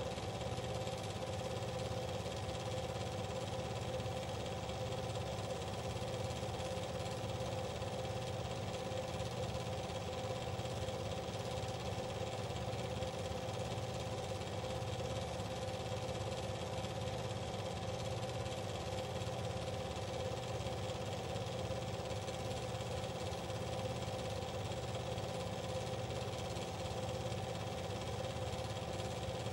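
Steady mechanical running noise with a constant hum of several fixed tones and a fine, even flutter, unchanging throughout.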